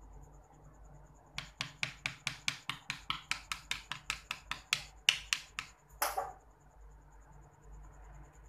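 A paint-loaded dabbing tool tapped quickly and repeatedly against a wood panel, about five taps a second for some four seconds, then one short scrape. Crickets chirp faintly throughout.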